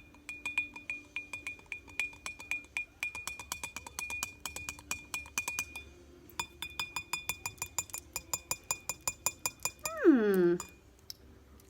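A spoon stirring oil and food colouring in a glass jar, clinking against the glass about four times a second with a ringing tone. It pauses briefly about six seconds in, then goes on a little faster. A short falling voice is heard near the end.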